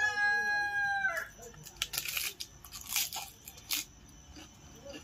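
A rooster crowing, its call held steady and then falling away about a second in. This is followed by a few sharp crunching noises about two to four seconds in.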